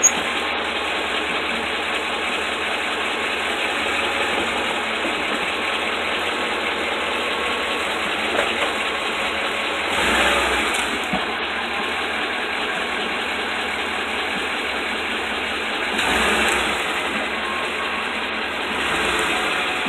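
2008 Ford F-150 4WD pickup making the unidentified strange mechanical noise its owner is asking about. The noise is steady, with brief swells in loudness about ten seconds in, again around sixteen seconds, and near the end.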